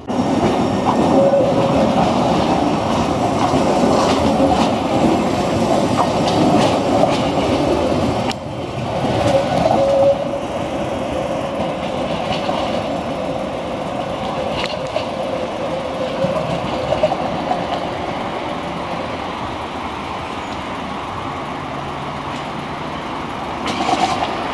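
Karlsruhe light-rail tram running along street track: a steady rumble of wheels on rail with scattered clicks and clatter. The sound breaks off abruptly about eight seconds in and carries on at a slightly lower level.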